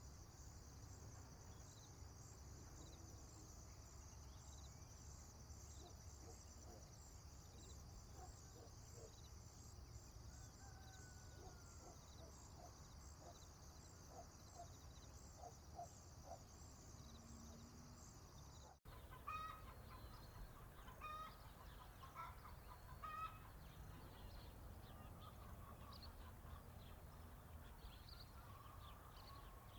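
Farm ambience, quiet: a steady, rapid high insect chirring, likely crickets, with a few short low clucks. About two-thirds of the way through, the sound cuts abruptly to chickens clucking in short, repeated calls. A low steady rumble runs underneath.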